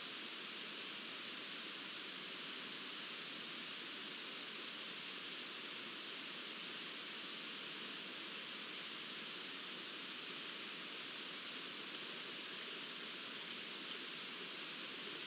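Steady, even hiss that does not change, with no distinct events.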